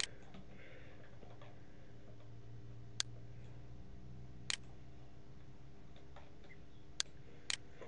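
Four single computer mouse clicks, sharp and short: one about three seconds in, another a second and a half later, then two close together near the end. A steady low electrical hum runs underneath.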